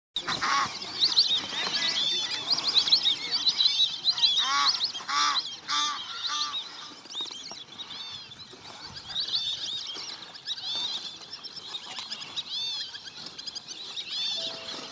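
Many birds calling at once: a dense chatter of short, high-pitched chirps throughout, with a few louder honking calls about four to six and a half seconds in.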